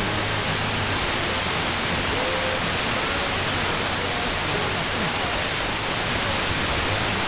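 Steady FM static hiss from a software-defined radio receiver tuned to a weak, distant FM station on 87.6 MHz. The signal has faded down into the noise, leaving only faint snatches of programme audio under the hiss.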